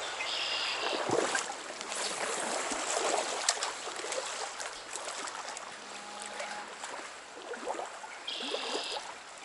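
Stream water running steadily, with scattered small splashes and clicks.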